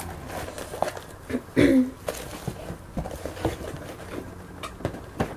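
Small items being packed into an open cardboard box and the boxes handled, with light knocks, taps and rustling. There is a brief hum of a voice about a second and a half in.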